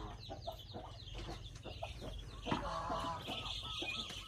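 A group of ducklings peeping, many short high chirps overlapping, with one louder, lower call about two and a half seconds in.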